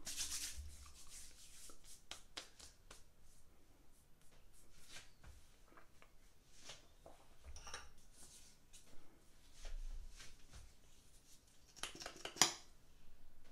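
Faint, scattered handling sounds: light rubbing and small clicks and taps, with a louder rustle and tap near the end.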